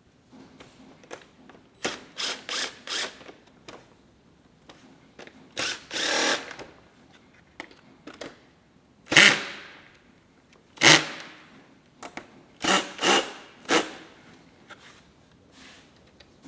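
Power drill driving screws into plastic self-tapping nuts, in a series of short trigger bursts: a quick cluster about two seconds in, a longer run about six seconds in, then separate bursts near nine and eleven seconds and another quick cluster near thirteen seconds.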